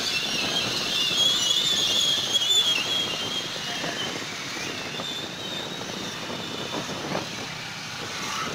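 Wind and road noise from a Hero Splendor Plus ridden slowly in traffic, with its small single-cylinder four-stroke engine running under way. A wavering high-pitched whine is heard over the first three seconds or so, and the noise is louder in that stretch than later.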